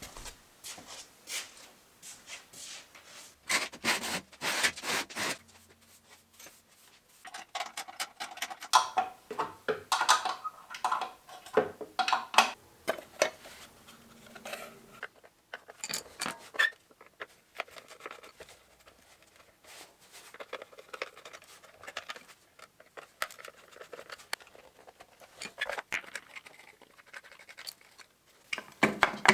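Intermittent hand-work noises: scraping, clicking and short knocks of tools and metal parts being handled, in irregular bursts with quiet gaps between.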